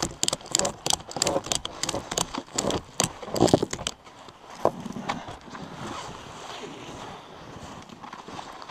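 Nylon strap webbing being pulled and cinched tight around a log: a run of quick rasping clicks, about three or four a second, for roughly three seconds, then a louder scrape, then softer handling of strap and log.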